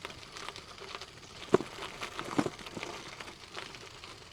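Irregular crunches and clicks of a bicycle and rider on loose stony gravel, with two louder knocks about a second and a half and two and a half seconds in.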